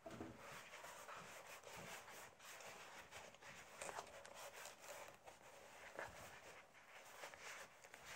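Hands rubbing and pressing leather flat over cardboard to stick it down with glue: a soft, continuous rustling and scuffing with a few stronger strokes.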